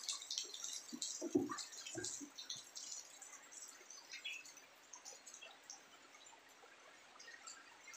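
Faint hiss and dripping of water, strongest at first and fading, with a few soft knocks a second or two in.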